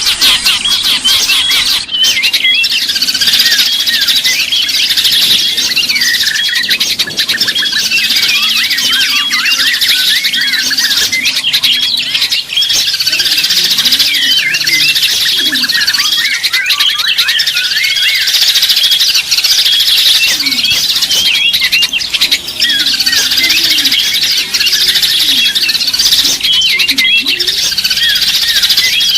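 A dense chorus of many small songbirds chirping and twittering at once, a continuous overlapping tangle of quick high notes with a few lower calls underneath.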